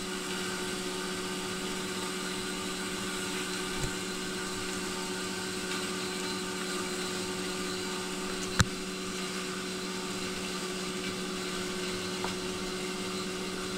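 A steady machine hum at one even pitch, with a single sharp click about eight and a half seconds in and a faint knock near four seconds.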